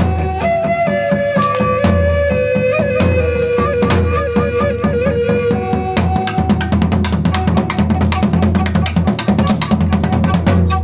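An end-blown flute plays a melody of held notes over a drum kit's beat of bass drum and snare. The drumming gets busier about halfway through.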